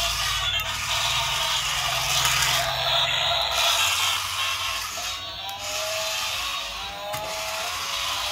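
Battery-powered transforming robot toy car's plastic gearbox whirring and ratcheting as it unfolds and folds, with music playing over it and a few rising electronic tones in the second half.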